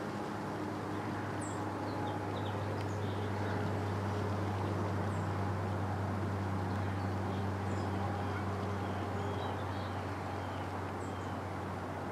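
Outdoor field ambience: a steady low drone with a few faint, short, high bird chirps scattered through it.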